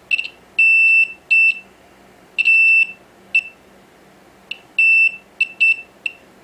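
Digital multimeter's continuity beeper sounding in about ten irregular beeps, some short chirps and some held for about half a second, as the probe tips touch and lift off components on an iPad Air logic board. Each beep is a single high electronic tone and marks a low-resistance path between the probes.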